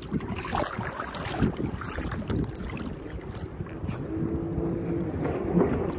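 Choppy sea water sloshing and splashing around a camera held at the surface, with wind on the microphone. A distant jet ski engine comes in faintly as a steady tone from about four seconds in.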